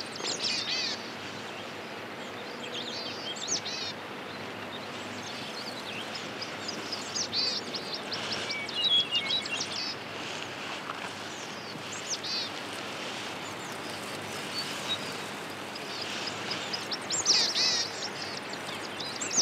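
High chirping calls in short clusters every few seconds, over a steady background hiss.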